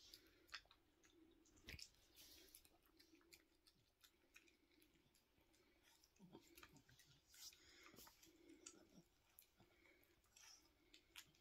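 Faint sounds of a Yorkshire terrier eating soft food from a ceramic bowl: irregular small clicks and wet chewing and licking noises.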